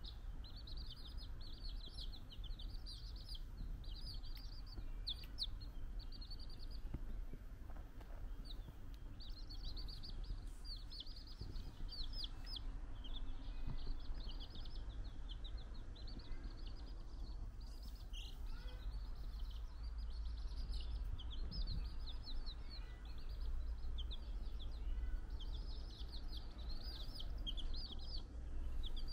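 A brood of domestic chicks peeping constantly, many short high chirps overlapping in quick runs, over a low steady hum.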